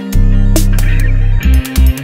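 Electronic background music with heavy sustained bass notes and sharp drum hits.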